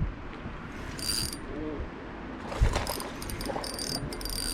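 Fishing reel's gears and drag clicking in several short spells while a bass is fought on the line.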